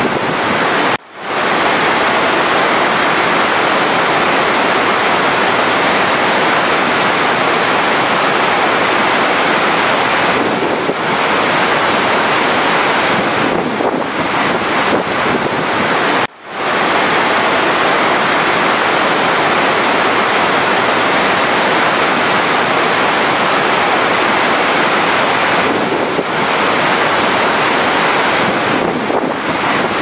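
Water of a large waterfall rushing and crashing in a steady, dense rush. The sound drops out for an instant twice, about a second in and about halfway through, then comes straight back.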